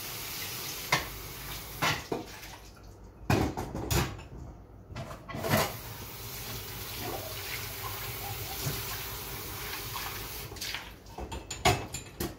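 Dishes being washed by hand in a stainless steel kitchen sink: water running from the tap, with scattered clinks and knocks of crockery and pans and a quick cluster of them near the end.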